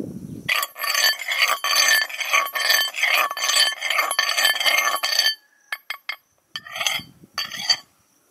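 Steel knife blade being sharpened on a rock: quick repeated scraping strokes with the blade ringing, stopping about five seconds in, then a few single strokes near the end.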